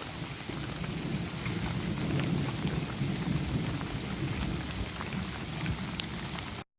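Steady rain falling, with scattered nearby drops ticking over a low rumble. It cuts off suddenly near the end.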